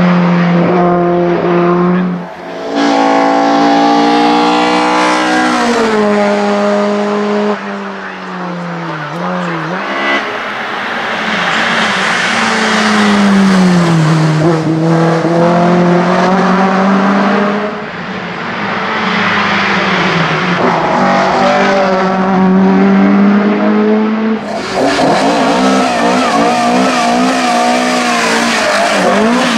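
Opel Kadett C Coupé 16V hillclimb race car at full throttle, its four-cylinder engine revving up and dropping in pitch at each gear change as it passes and climbs away. About five seconds from the end, a different four-cylinder engine takes over: an Opel Ascona B 16V race car revving hard at the start line, its pitch wavering.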